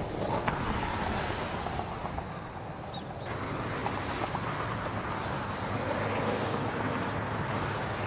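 Steady rush of passing highway traffic.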